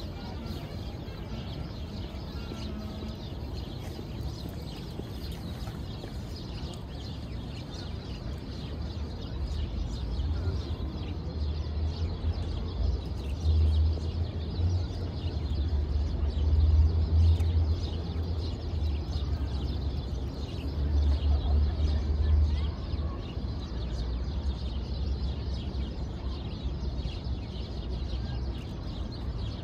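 Outdoor city-park ambience: a steady low city hum that swells louder for a while in the middle, with small birds chirping faintly throughout.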